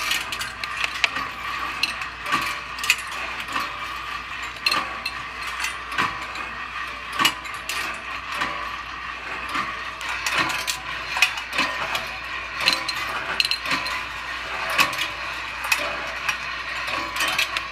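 A rolling-ball kinetic sculpture of stainless steel wire running: 1/4-inch chrome steel balls roll, click and clack along the wire tracks and through the turning auger and chain drive. The clicks come irregularly, several a second, over a steady hum.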